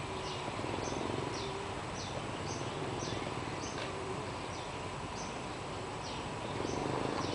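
Distant Alsthom diesel-electric locomotive approaching, a low steady rumble that grows louder near the end. Short high chirps repeat about twice a second over it.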